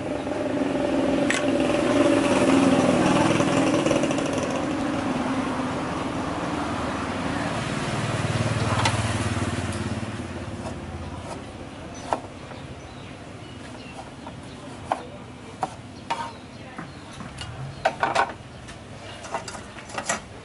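A motor vehicle engine swells over the first couple of seconds and fades away over about ten seconds. After it, scattered sharp clicks and knocks.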